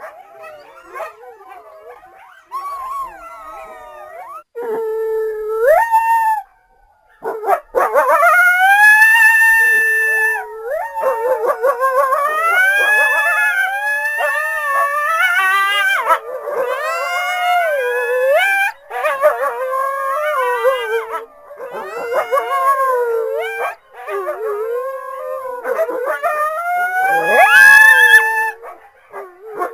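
Several coyotes howling and yipping. A few faint calls come first, then from about seven seconds in many voices overlap in loud, wavering howls and yips that rise and fall in pitch.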